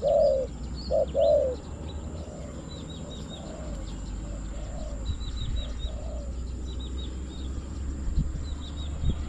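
Spotted doves cooing: a few loud, low coos in the first second and a half, then fainter coos spaced through the rest. Small birds chirp high and thin in the background, over a low wind rumble.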